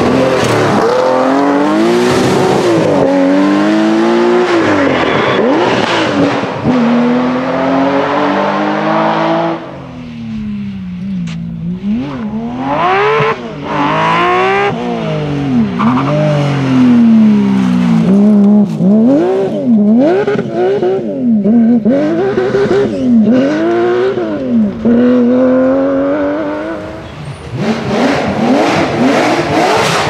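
Porsche 911 rally cars' flat-six engines revving hard, one car after another, the engine note climbing and dropping sharply with each gear change and lift.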